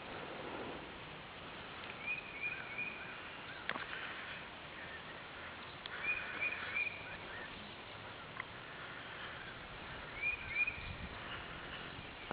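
A bird chirping in short groups of two or three high notes, repeated about every four seconds, over steady outdoor background noise, with a few faint clicks.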